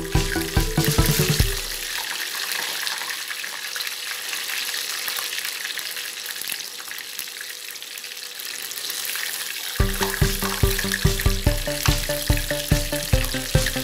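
Chicken pieces deep-frying in hot oil, a steady sizzle. Background music with a steady beat plays over it at the start, stops after about a second and a half, and comes back about ten seconds in.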